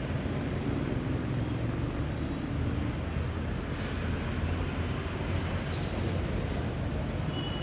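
Steady low rumbling background noise, with a few faint, short, high bird chirps scattered through it and a brief thin whistle near the end.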